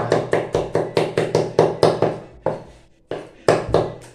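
Cleaver chopping garlic on a chopping board: a quick run of sharp knocks, about four a second, with a short pause near the middle.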